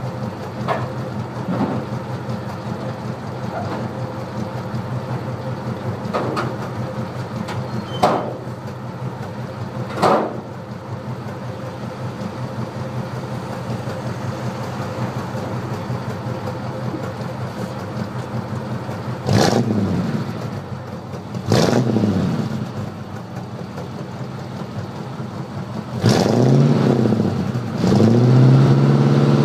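Dodge 360 V8 in a 1971 Dodge Charger, heard close to the exhaust pipes from under the car. It idles steadily, with two sharp clicks in the first third, then takes two quick throttle blips about two-thirds of the way through. Near the end it is revved up again and held at a higher, louder engine speed.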